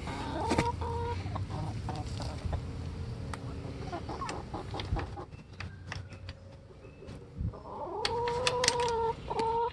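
Hens vocalizing: a short call about half a second in and a longer, drawn-out call about eight seconds in, with scattered light clicks and taps between them.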